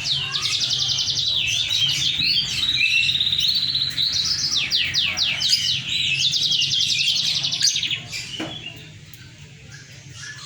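Moken, a yellow-fronted canary × domestic canary hybrid, singing a fast, varied song of rapid down-sweeping notes and buzzy trills. The song drops much quieter about eight seconds in.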